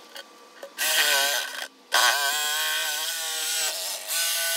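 Cordless Makita jigsaw cutting through a rubberwood butcher block countertop in three bursts: a short one about a second in, a longer one from about two seconds, and another near the end. Its motor pitch wavers as it cuts.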